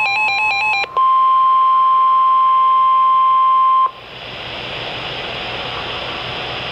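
Emergency Alert System tones on NOAA Weather Radio: under a second of rapidly warbling electronic beeps, then a steady single-tone alarm of about 1 kHz, the weather radio's warning alarm tone. It holds for about three seconds, cuts off sharply, and leaves steady radio hiss.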